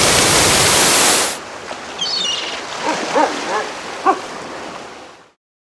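A loud rush of spraying water for about a second that cuts off suddenly, followed by a softer wave-like wash with a quick high chirp and a few short animal calls, fading out.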